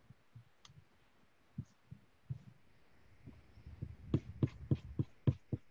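Rubber eraser rubbed on drawing paper in short back-and-forth strokes, rubbing out unwanted pencil lines. A few faint taps at first, then from about four seconds in a quick run of strokes, about three a second.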